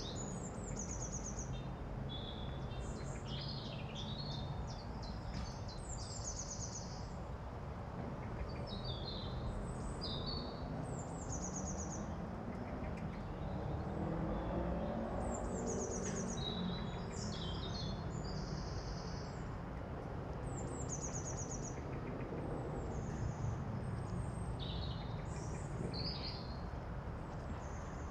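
Several birds calling and singing, one repeating a short, rapid trilled phrase every few seconds, over a steady low rumble that swells for a few seconds around the middle.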